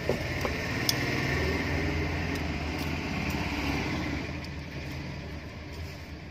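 An engine running steadily, fading off after about four seconds, with a few faint clicks.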